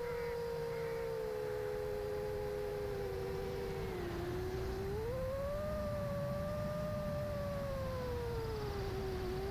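Motors of an 8-inch long-range FPV quadcopter whining steadily over a low rumble, the pitch dipping about four seconds in and rising again a second later as the throttle changes.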